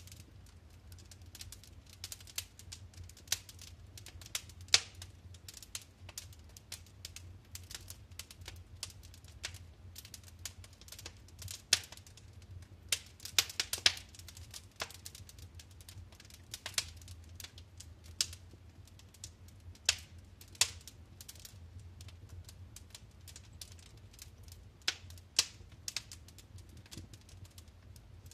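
Wood fire in a fireplace crackling, with irregular sharp pops and snaps over a soft low rumble of the flames; a quick cluster of louder pops comes about halfway through.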